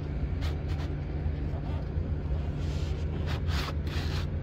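Plastic RV roof-vent lid being slid along its metal hinge, a few soft scrapes and rubs, over a steady low hum.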